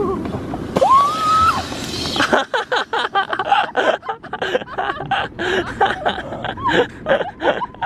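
Dog whining from the boat as its owner swims away: one long rising whine about a second in, then a rapid string of short whimpers and yelps.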